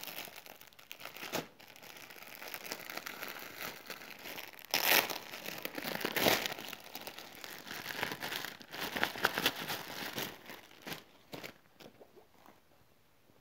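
Clear plastic clothing packets crinkling and rustling as they are handled and opened, with two louder bursts about five and six seconds in, dying away near the end.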